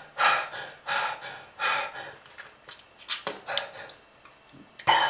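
A person breathing hard in a series of short, heavy, gasping breaths, the loudest one near the end.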